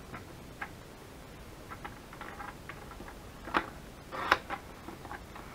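Sliding paper trimmer cutting cardstock. Light clicks and rustles as the paper is set against the guide, then a sharp click and a short scraping rasp about four seconds in as the cutter head is drawn along its rail.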